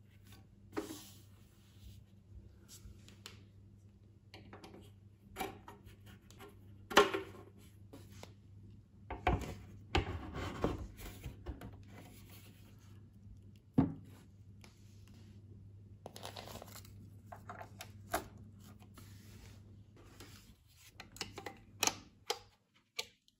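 Handling noises from setting up a turntable: scattered knocks, rubbing and plastic rustling as the platter mat is laid on and cables are fitted, with several sharp clicks near the end as a plug-in power adapter is pushed into a wall socket. A faint low hum runs underneath.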